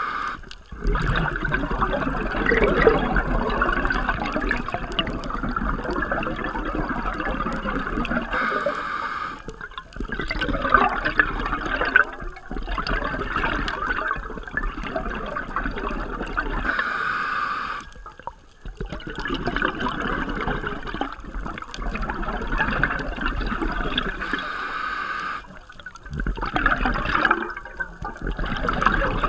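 Scuba diver breathing through a regulator underwater: long stretches of bubbling exhalation, broken by a short hissing inhalation about every eight seconds.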